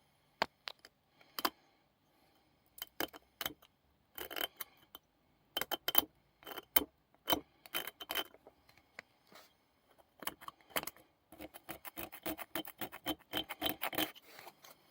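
Hand tool scraping and rubbing on the vise's metal in short, irregular strokes, turning to a quick run of strokes about ten seconds in.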